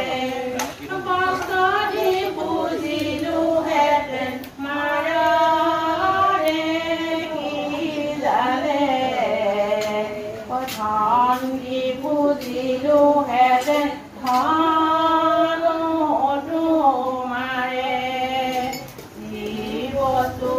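Women's voices singing a devotional song in long, held melodic phrases with short breaks between them.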